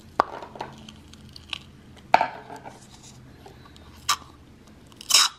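Plastic syringe knocking and scraping against a plastic measuring beaker as thick gel mixture is drawn up into it: a few sharp clicks spaced about a second or two apart, with soft scraping between.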